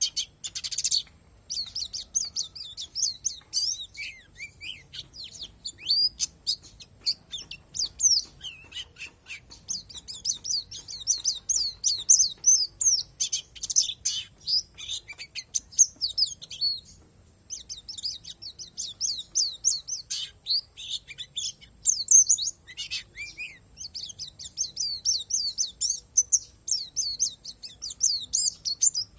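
Pleci palas Borneo white-eye singing: long, fast runs of high twittering chirps, broken now and then by short pauses.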